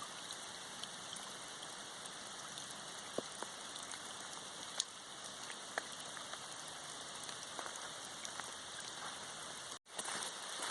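Steady rain falling, an even hiss with a few louder single drops ticking close by. The sound drops out for an instant near the end.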